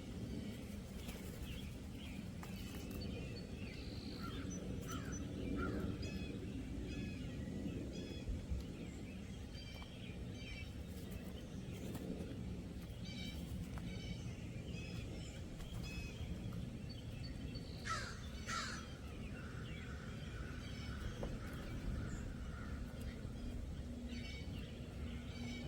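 Wild birds chirping and calling, with many short chirps throughout and two louder, sharper calls about eighteen seconds in, over a steady low rumble.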